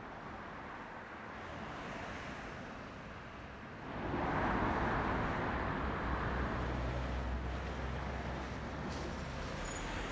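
Road traffic: a steady hum of passing vehicles, with one vehicle going by louder from about four seconds in, its rumble fading over the following few seconds.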